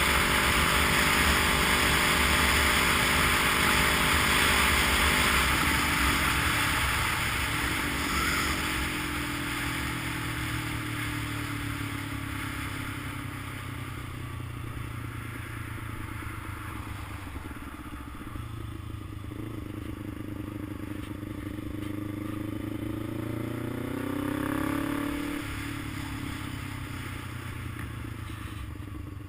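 Vehicle engine running on the move, its pitch falling and rising as the speed changes, with heavy wind rush that eases after the first several seconds.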